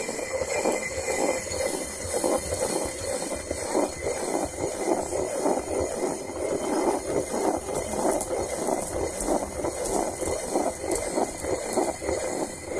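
Hand quern of two heavy stones, the upper millstone turned by hand on the lower one to grind rice into flour: a continuous stone-on-stone grinding rumble with a quick, uneven pulse.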